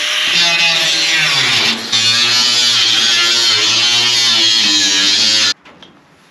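Angle grinder cutting a corrugated metal roofing sheet: a loud, steady grinding hiss over guitar music. It stops abruptly about five and a half seconds in, followed by quieter handling sounds.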